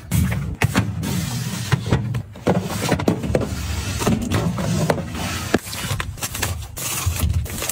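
Items being handled and set down: frequent clicks, knocks and rustling.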